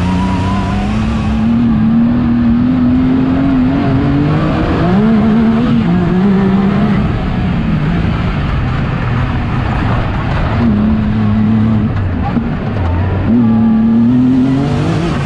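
Turbocharged Yamaha YXZ1000R side-by-side's three-cylinder engine pulling hard under load, its pitch climbing and then dropping back in steps several times as it revs through the gears, heard from inside the cockpit.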